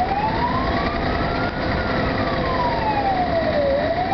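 Fire engine's wailing siren, heard from inside the cab over steady engine and road noise. It rises slowly for about two seconds, falls for about two seconds, and starts rising again near the end.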